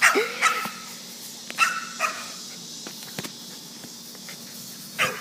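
Excited pet dog giving a few short, separate barks and yips, spaced out with pauses between them.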